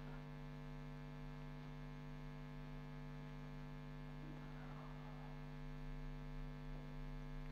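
Steady electrical mains hum, a low even buzz with several fixed tones. About halfway through there is faint rubbing on a whiteboard as it is wiped and written on.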